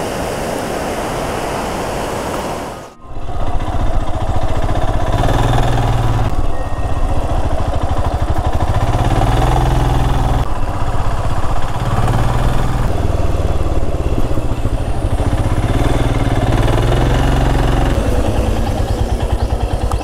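Rushing mountain stream for about three seconds, then a cut to a motorcycle engine running under way. Its note rises and falls several times as the rider accelerates and eases off.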